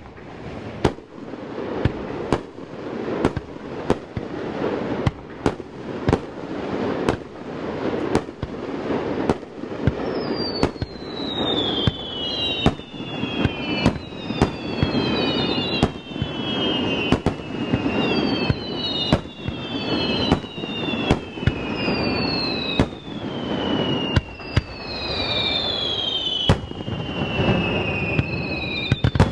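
Aerial firework shells fired in a rapid star-mine sequence: sharp booms more than once a second over a continuous rumble and crackle. From about ten seconds in, whistling shells add repeated falling whistles that overlap one another.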